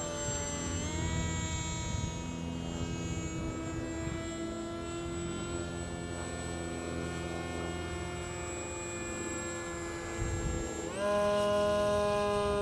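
Radio-controlled Depron flying-wing model plane's motor and propeller buzzing overhead, its pitch sliding slowly down and up as it flies. About eleven seconds in, it rises sharply in pitch and gets louder. A low rumble runs underneath.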